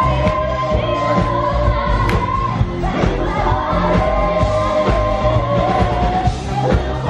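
Live stage-show music: a singer holding long notes over a band with a steady beat.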